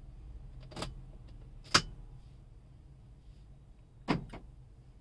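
Car key clicking in the ignition lock of a Volkswagen Polo as it is turned off and pulled out. There are a few sharp clicks: a light one, then the loudest nearly two seconds in, then a quick pair about four seconds in.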